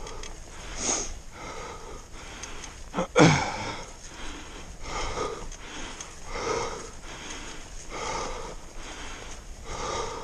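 A person breathing hard and wheezing while climbing, a heavy breath about every second and a half, with one louder, sharper breath about three seconds in.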